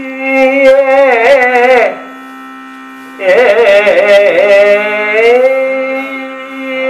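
Kathakali vocal music: a singer holding long, heavily ornamented phrases over a steady drone, breaking off about two seconds in and starting a new phrase about a second later, with a few sharp percussion strikes keeping time.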